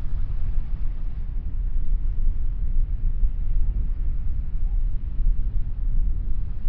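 Wind buffeting the microphone: a low rumble that swells and dips unevenly, with a faint hiss above it.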